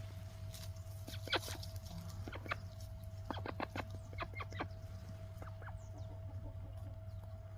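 Pet duck giving short calls: a few scattered ones, then a quick run of them in the middle, over a steady low hum.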